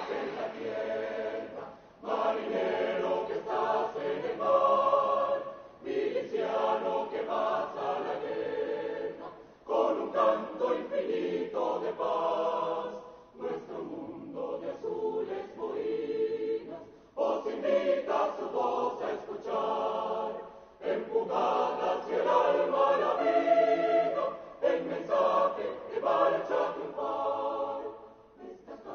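Choir singing, in phrases separated by short breaths every three to four seconds.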